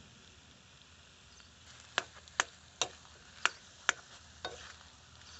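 Steel spoon stirring a mashed potato mixture in an iron kadhai, clacking sharply against the pan six times about half a second apart from around two seconds in, over a faint frying hiss.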